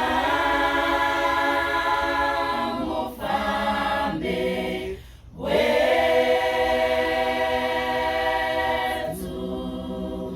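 A choir of voices singing a cappella in harmony, holding long chords in two phrases, the second starting about five and a half seconds in.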